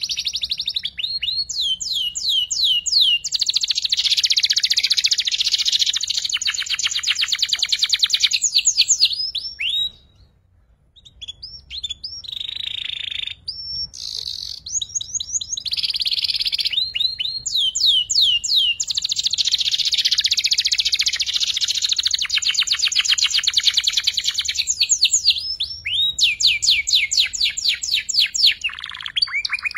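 Young domestic canary singing long phrases of fast trills and rapidly repeated sweeping notes: the chattering 'ngeriwik' song of a juvenile bird still learning. The song breaks off briefly about ten seconds in, then resumes.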